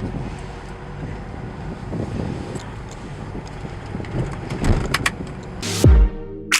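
Steady car and road noise with a low hum. Near the end a loud, low, falling boom comes in.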